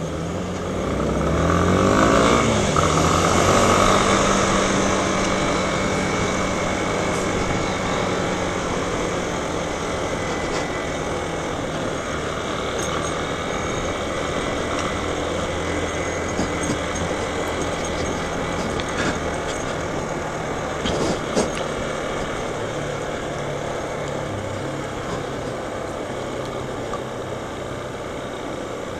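Motorcycle engine heard from the rider's seat, revving up as it pulls away over the first few seconds, then running steadily at cruising speed.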